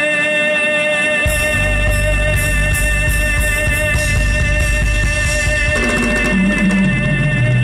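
Live amplified band with keyboard, electric guitars and drum kit playing a zapateado. Keyboard chords hold steady throughout; low bass notes and drums come in about a second in, and a descending run of low notes follows near the end.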